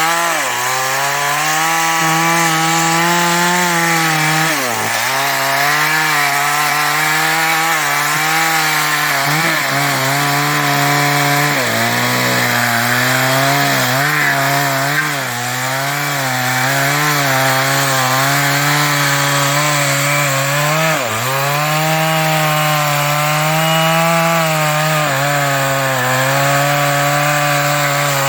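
New West 588 two-stroke chainsaw running at high revs under load, cutting through teak wood. Its pitch dips sharply and recovers twice, about five seconds in and again near twenty seconds, as the engine bogs in the cut, and it wavers in the middle.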